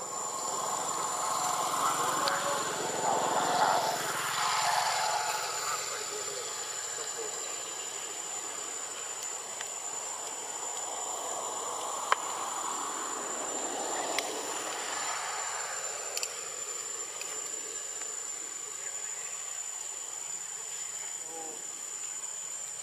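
Outdoor ambience: a steady high-pitched insect whine over a faint background hum, with a louder indistinct murmur in the first five seconds or so and a few small clicks later on.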